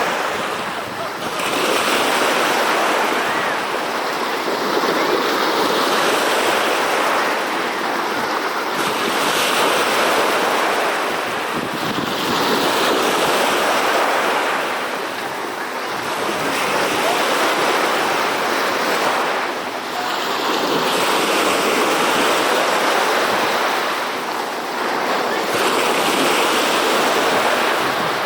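Sea waves washing in and breaking, a steady rush of surf that swells and eases about every four seconds.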